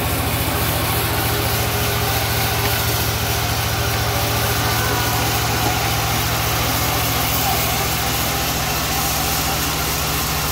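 Engine of a portable sawmill running steadily at an even speed, a low drone with a fast, even pulse.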